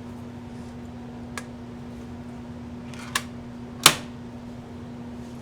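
Graflex Speed Graphic press camera being folded shut: three sharp mechanical clicks, the loudest near the end, over a steady low hum.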